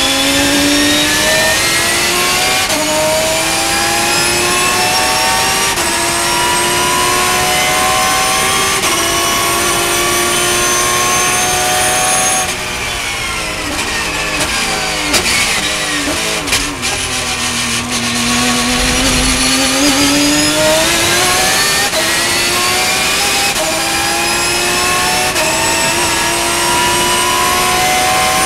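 Porsche race car's engine heard from inside the cockpit under full throttle, its note rising through the gears with upshifts in the first several seconds. About halfway through the driver lifts and brakes and the engine note drops away with a few sharp pops and clicks. It then climbs again under throttle to the end.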